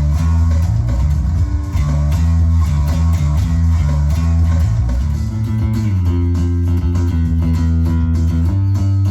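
Electric bass guitar played through an amplifier: sustained low notes and short runs, with the pitch moving up about six seconds in and shifting again near the end.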